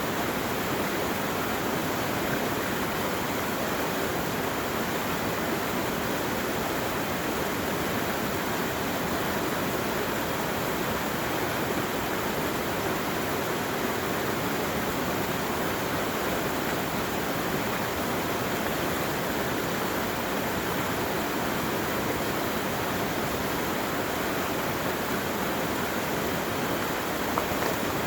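Rushing water running steadily, like a fast stream or small waterfall, with one brief tick near the end.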